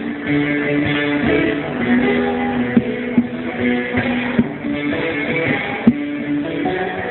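Turkish zeybek folk tune played on plucked, strummed string instruments, with held notes and sharp percussive knocks now and then.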